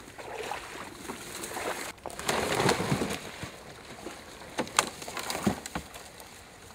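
A plastic jet sled loaded with a deer being dragged through shallow swamp water, the water sloshing around it; about two seconds in the sound changes to the sled scraping over dry leaves and brush, with rustling and a few sharp twig cracks.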